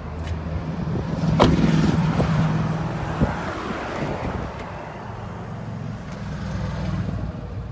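A vehicle engine running steadily, swelling and fading, with a sharp click about one and a half seconds in and a lighter click about three seconds in.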